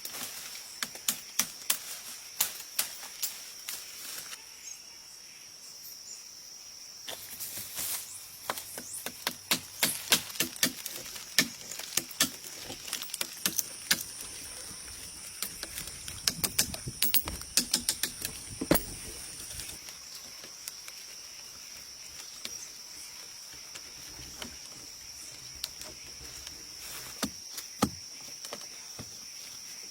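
Steady high insect drone, like crickets, with a second, higher drone joining about halfway through for several seconds. Over it comes a scatter of sharp clicks and knocks, thickest in the middle.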